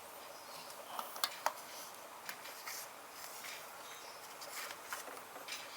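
Faint, irregular small clicks and taps of hands handling a TV's circuit board during inspection, the sharpest few about a second in.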